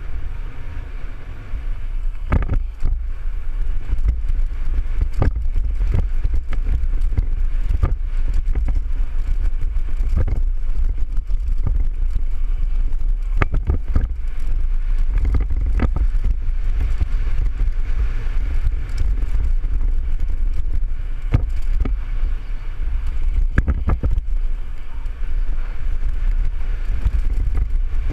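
Wind buffeting a helmet-mounted microphone as a mountain bike descends a dirt singletrack, with scattered clicks and knocks from the bike jolting over the trail.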